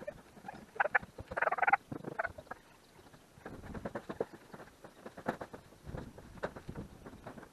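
Irregular clicks, taps and light knocks, with a short burst of rustling scraping about a second and a half in.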